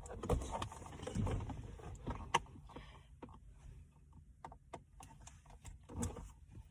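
Scattered light clicks, taps and scrapes of a Phillips screwdriver working a screw out of a car's dashboard climate-control panel, with plastic trim being handled; busier in the first half, sparser later.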